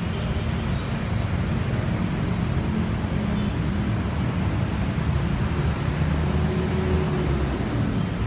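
Steady city road traffic noise: the rumble of passing cars and other motor vehicles.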